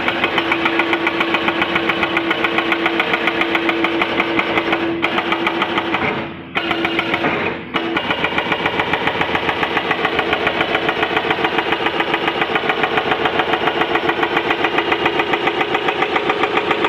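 Hydraulic breaker on a Volvo EC330BLC excavator hammering rock in a rapid, steady stream of blows. It breaks off briefly twice about six and seven and a half seconds in, then carries on.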